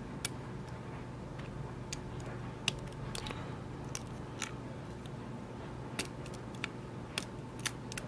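Lock pick working the pin stack of a Sargent mortise cylinder during single pin picking: about a dozen small, sharp metallic clicks at irregular intervals.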